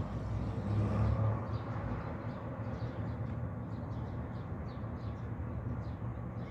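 A car driving off along the street: a low engine and tyre rumble that swells about a second in and then settles. Birds chirp faintly and repeatedly above it.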